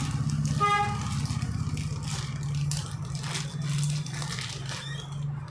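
Plastic courier mailer crinkling as it is cut open with scissors, over a steady low hum. A short horn-like toot sounds just under a second in.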